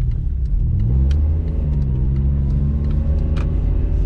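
Citroen C1's engine heard from inside the cabin, its note rising about half a second in as the car speeds up, then holding steady, over tyre noise on a wet road.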